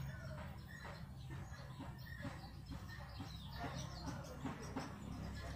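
Faint bird calls, chicken-like clucking and chirps, over a low steady hum.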